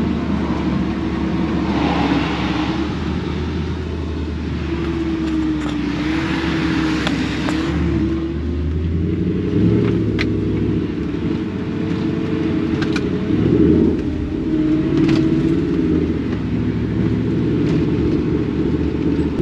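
Ford Ranger pickup's engine running, heard from inside the cab while driving, its note rising and falling. A few light clicks come late on.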